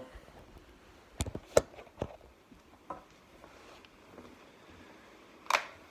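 Quiet clicks and taps, a cluster of sharp ones between one and three seconds in with the loudest about a second and a half in, then a short hiss near the end.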